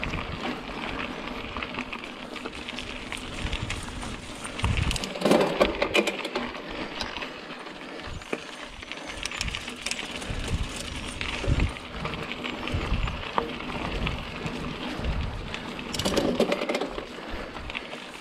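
Mountain bike ridden along a dirt singletrack: a steady noise of tyres on the trail, with clicks and rattles from the bike and uneven low rumbles. The noise swells twice, about five seconds in and again about sixteen seconds in.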